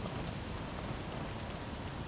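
Wood campfire burning: a steady hiss with a few faint crackles.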